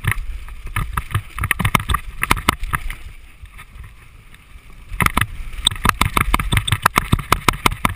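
Mountain bike rattling and clattering at speed down a rough dirt trail, a dense run of sharp knocks from the bike over bumps, with wind rumbling on the microphone. The rattling eases for a couple of seconds midway, then picks up hard again.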